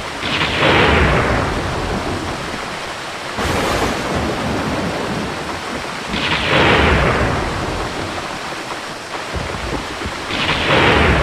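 Heavy thunderstorm noise, a steady rush of rain and wind. Over it, a strange rushing whoosh three times that falls in pitch as it fades, plus one short hiss about three and a half seconds in.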